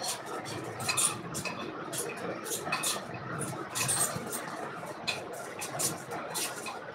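Plastic piping bag crinkling in the hands as melted chocolate is squeezed out of it: a string of irregular small crackles.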